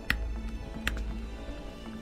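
Background music, with two sharp metallic clicks about three-quarters of a second apart as a screwdriver works a bridge screw out of a Penn reel's side plate.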